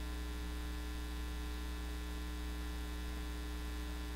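Steady electrical mains hum: a low, unchanging buzz with a ladder of higher overtones above it, and nothing else.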